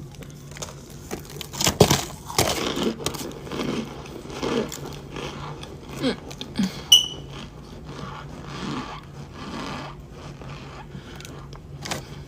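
Handling noises from cornstarch blocks and their packaging: scattered rustles, scrapes and clicks over a steady low hum, with a short high ping about seven seconds in.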